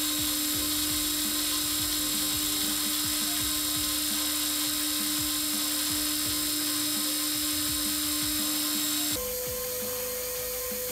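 A workshop power tool running steadily with a constant whine. About nine seconds in, the sound switches abruptly to a slightly quieter, higher whine.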